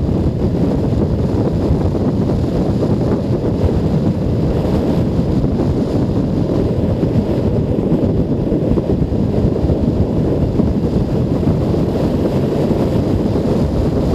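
Wind buffeting a helmet-mounted camera microphone on a moving Junak M12 Vintage 125 cc motorcycle: a steady, loud low rumble that covers the engine.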